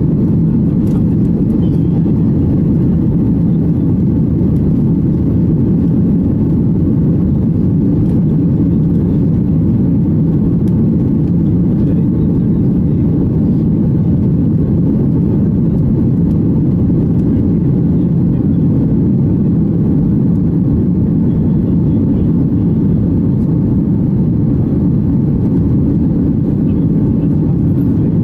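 Steady, loud low-pitched engine and airflow noise inside the cabin of a Boeing 737-800 climbing out just after takeoff, its CFM56-7B turbofans at climb thrust.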